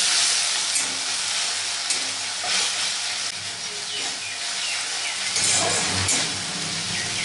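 Wet ginger, garlic, green chilli and tomato paste sizzling hard in hot mustard oil with chopped onions in a kadai, a steady loud hiss. It is being mixed with a spatula that now and then scrapes against the pan.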